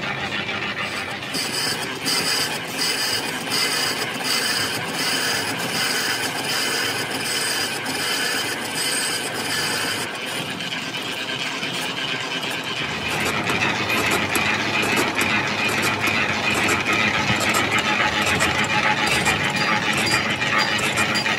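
A manual lathe running with a large spoked gear blank turning in it and the tool working the hub face: steady mechanical clatter with regular clicks about twice a second. From about two-thirds of the way through, the sound grows louder and hissier.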